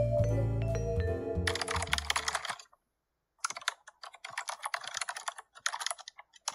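Background music ends about two and a half seconds in. After a brief pause, rapid typing on a laptop keyboard follows in quick bursts of key clicks separated by short breaks.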